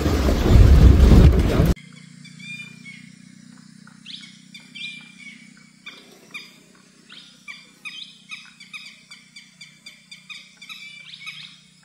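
Loud vehicle noise that cuts off suddenly about two seconds in. After it, birds chirping in the forest: a long run of short, repeated high calls, about two a second, over a low steady hum.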